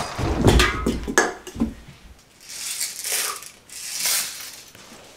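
A few sharp mechanical clicks and rattles of a replica rifle being handled, in the first second and a half after a burst of gunfire stops, followed by two or three soft swishes.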